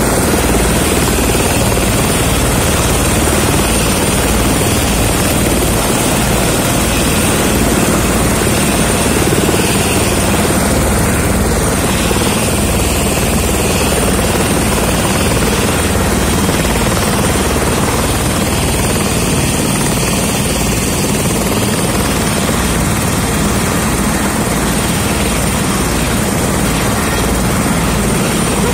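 Helicopter running on the ground close by: a steady high turbine whine over loud, constant engine and rotor noise, with the fast, even beat of the rotor blades underneath.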